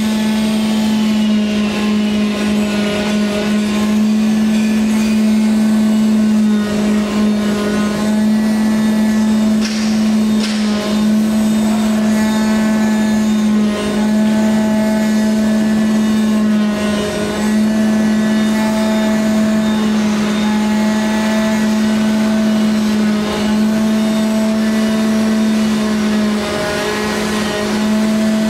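CNC router cutting EVA foam with its digital knife head, giving a steady loud machine drone with a strong hum and overtones that dips slightly now and then as the head moves.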